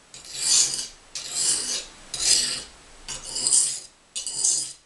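A paring knife being sharpened on a coarse, oiled whetstone: five scraping strokes of the blade across the stone, about one a second.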